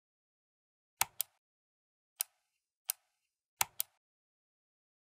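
Computer mouse button clicks: six sharp clicks, a quick pair about a second in, two single clicks, then another quick pair, with dead silence between.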